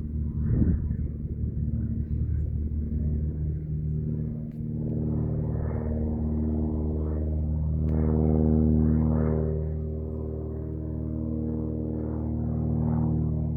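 Cessna 180A's engine and propeller running steadily, the level swelling and easing slightly a few times.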